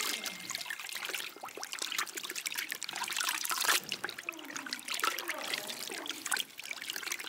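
A cloth being squeezed and swished by hand in a bucket of water, with water sloshing, splashing and trickling in a quick, irregular run.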